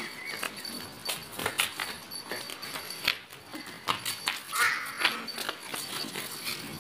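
Irregular sharp taps and scuffs of a dog's claws and people's sandals on a concrete floor during a chase, with a short higher-pitched sound a little before five seconds in.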